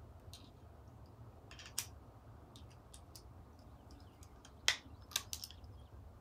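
Lee Precision hand press being handled and worked: a few sharp, separate metal clicks and clacks of its parts, the loudest two a little past the middle, over a faint low rumble.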